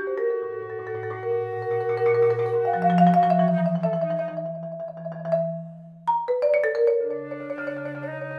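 A flute and a concert marimba playing together: the marimba rolls low notes and strikes a run of higher ones under the flute's held notes. Near six seconds in the music fades, then comes back with a sudden loud accent.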